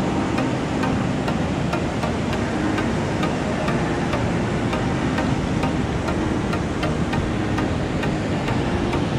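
Steady rush of surf and wind, with faint regular ticking about three times a second running through it.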